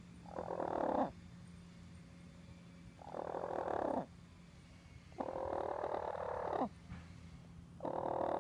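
A hen calling four times, each a harsh, drawn-out call of about a second that drops in pitch at its end, with the calls coming every two to three seconds.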